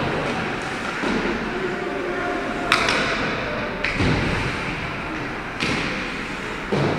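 Ice hockey sticks and puck cracking against the ice and the boards: four sharp knocks spread through a few seconds, each echoing around the large rink hall, over the hall's steady hum.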